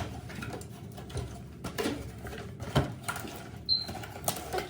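A new pressure cooker being handled: scattered light knocks and clicks of metal parts and packaging, with a short high squeak near the end.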